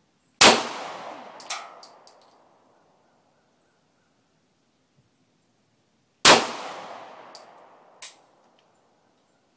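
Two shots from a Glock 22 pistol in .40 S&W, about six seconds apart, each echoing away over a second or two. A lighter metallic clink follows each shot about a second later.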